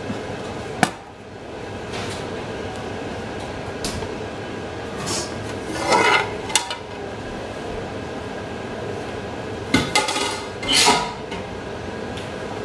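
A stainless steel cooking pot is handled on a wooden board and its metal lid is lifted off. There is a sharp click about a second in, then metal clanks and scrapes in two clusters, about six and about ten seconds in.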